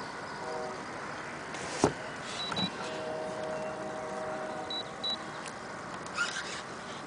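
Fishing reel's drag whining in short bouts as a hooked muskie pulls line off, the longest run about two seconds long near the middle, with a sharp click about two seconds in.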